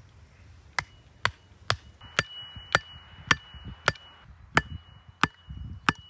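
An axe striking sharpened wooden stakes, driving them into loose soil: about ten sharp blows, evenly spaced at nearly two a second.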